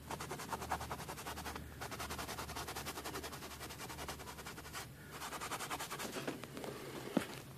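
Paintbrush tapping rapidly against a stretched canvas, about ten light taps a second, in three runs broken by short pauses, with one sharper knock near the end.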